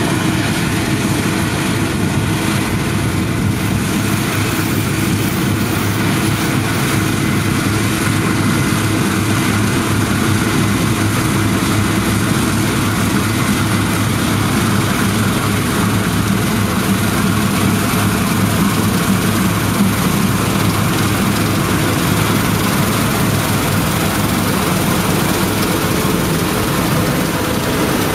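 Case IH 9120 combine harvester's diesel engine and threshing machinery running steadily under load while cutting wheat with a 30 ft header: a loud, even drone with a constant low hum.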